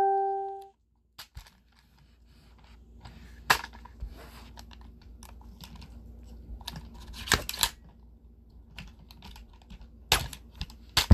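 Scattered metallic clicks and clacks of an M&P 15-22 bolt assembly being worked and handled by hand, with a few sharper clacks spread through. A ringing tone dies away in the first second.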